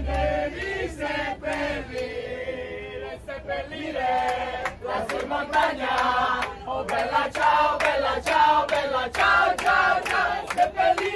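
A crowd of bus passengers singing together in loud chorus, with hand claps on the beat.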